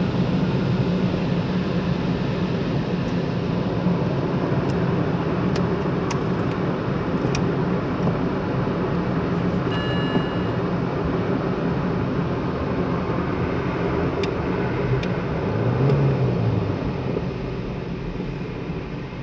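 Steady mechanical noise of an automatic car wash, heard from inside the car as it rolls out. It swells briefly about three-quarters of the way through, then drops off near the end.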